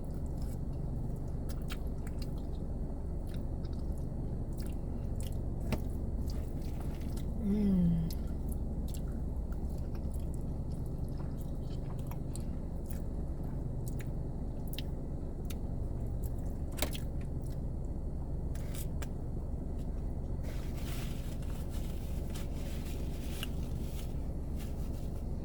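Close-up eating sounds of a person chewing food, with wet mouth clicks and smacks scattered through, over a steady low hum. There is a short hummed vocal sound about eight seconds in.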